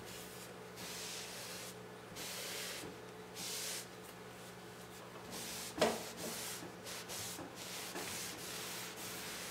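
Damp cloth towel rubbing over a wooden tabletop in repeated wiping strokes, wiping off fresh paint. A sharp knock about six seconds in.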